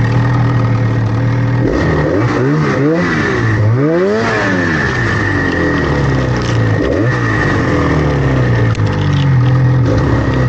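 Snowmobile engine revved up and down several times in quick succession a couple of seconds in, then held steady with a smaller dip later on, as the sled works to get over rocks in thin snow.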